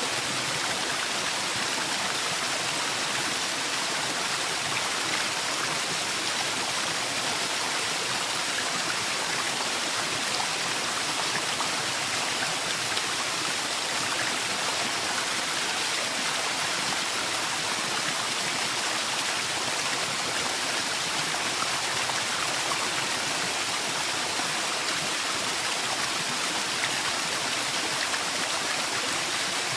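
Waterfall in a forest: a steady, even rush of falling water with no breaks.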